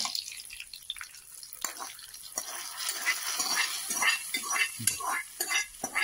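Hot tempering of coconut oil, mustard seeds, dried red chillies and curry leaves tipped from a small pan into a stone pot of rasam, with a ladle scraping the pan. It crackles and sizzles as it hits the liquid, thickening into dense spluttering from about halfway through.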